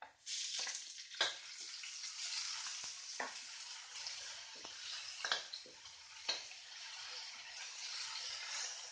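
Sliced red chilli, shallots and garlic sizzling in hot oil in a metal wok, with a steady hiss that rises just after the start as the chilli goes in. A spatula stirring the mix clicks and scrapes against the wok several times.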